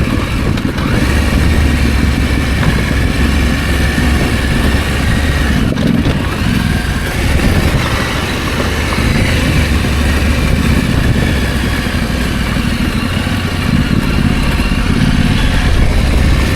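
Husqvarna Norden 901's parallel-twin engine running steadily at low revs, with a brief dip about six seconds in.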